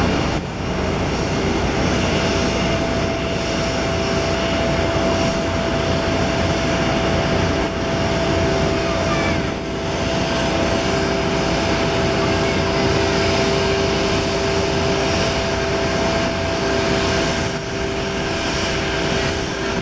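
Airbus A321 airliner's turbofan engines at taxi power as the jet rolls past: a steady jet rush with two steady whining tones over it.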